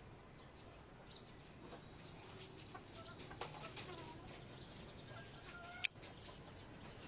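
Chickens clucking faintly in the background, in short calls. There are scattered small clicks and a single sharp click just before six seconds in, which is the loudest sound.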